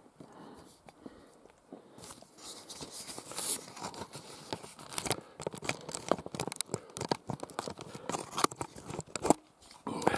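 Footsteps and rustling through low tundra shrubs and grass: a dense run of irregular crackles and swishes that starts about two seconds in.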